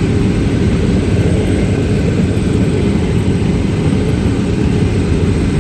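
Strong wind and heavy rain from a tornado storm, heard as a steady, loud, low rumble with no breaks.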